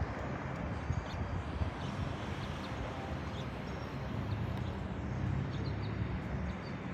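Helicopter flying overhead: a steady low, choppy rotor beat with a rushing noise above it.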